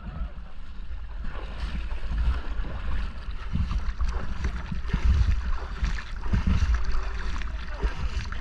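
River water rushing around a raft running a rapid, with scattered splashes and wind rumbling on the microphone.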